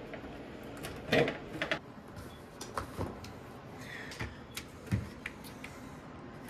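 Clicks and knocks of 12-volt batteries and their wire connectors being handled in a sheet-metal UPS battery tray, with the loudest thump about a second in and a scatter of lighter knocks after.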